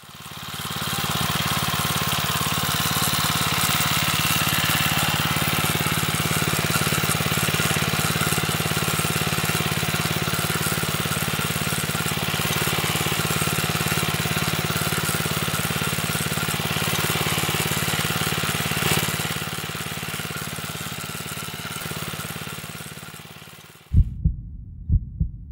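Small petrol engine of a walk-behind rotary tiller running steadily, fading in at the start and fading out near the end, followed by a few low thumps.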